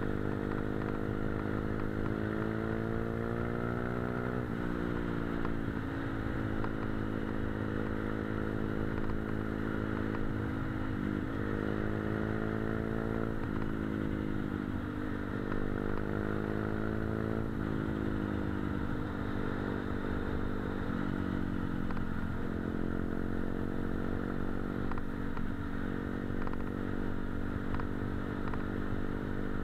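Motorcycle engine running on the move. Its pitch climbs steadily and then drops sharply several times, as with throttle changes or gear shifts.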